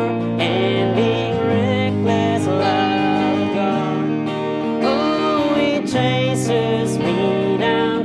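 A man singing a slow worship song over a strummed acoustic guitar and an electric guitar.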